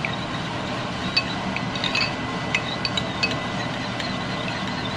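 Metal spoon clinking against a ceramic bowl while stirring a thick sauce: about half a dozen light, ringing clinks at uneven intervals, over a steady background noise.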